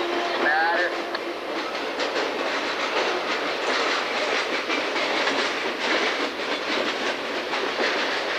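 Freight cars of a passing train (boxcars, a tank car, an autorack) rolling by, steel wheels clicking and clattering over the rail joints in a steady, uneven clickety-clack.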